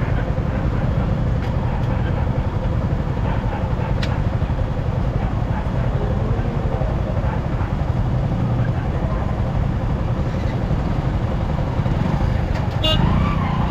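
Road noise from a motorcycle ride: a steady low rumble of engine and wind in traffic, with a brief click near the end.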